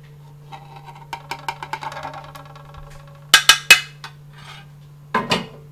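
A spoon scraping and clinking against dishes as black pepper sauce is spooned onto a plastic plate. A run of light squeaky scrapes and ticks gives way to three sharp taps about three and a half seconds in, with one more knock near the end.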